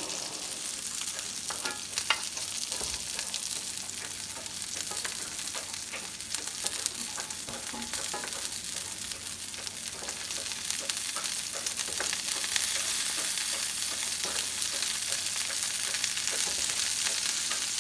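Ribeye steaks frying in butter in a cast iron skillet: a steady sizzle with a crackle of small spitting pops. It gets a little louder about twelve seconds in.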